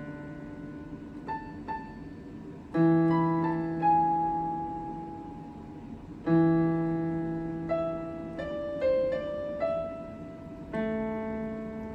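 Electronic keyboard on a piano voice, played slowly: three sustained chords struck a few seconds apart, each fading away, with a handful of single melody notes picked out above them.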